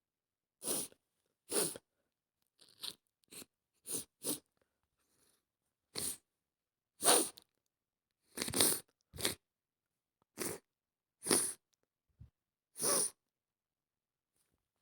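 A woman with a head cold sniffling: about a dozen short, wet sniffs through a congested nose, coming at irregular intervals.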